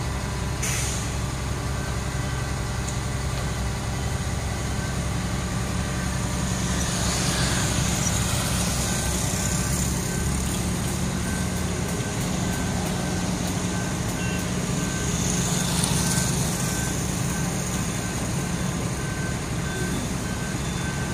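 Concrete pump truck's diesel engine running steadily under load while it pumps concrete up the boom. A reversing alarm beeps steadily from about two seconds in, and a brief hiss rises twice.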